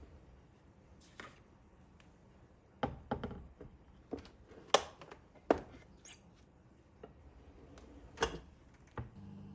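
Irregular light knocks and clicks of objects being set down and handled, about eight in all, the sharpest a little before and after the middle.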